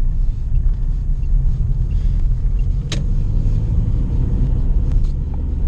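Lada Priora driving over a bumpy road, heard from inside the cabin as a steady low rumble, with one sharp knock from the suspension about three seconds in and fainter ones near the end. The rattle is one the owner suspects may come from a noisy rear shock absorber.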